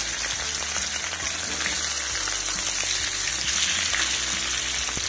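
Fish heads sizzling and crackling in hot mustard oil in a karai: a steady, loud frying hiss.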